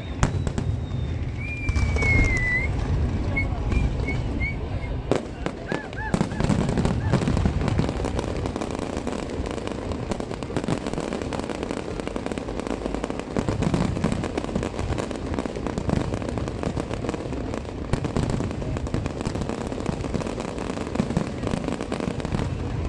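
Fireworks display: a dense run of bangs and crackling over a low rumble, with a whistling shell streaking up about two seconds in.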